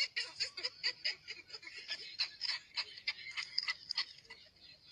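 A small child giggling high-pitched, in a quick, uneven run of short breathy laughs.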